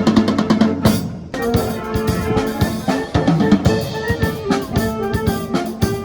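Music with a drum kit: a steady beat of bass drum and snare under sustained pitched instrument notes, with a short break about a second in before the beat resumes.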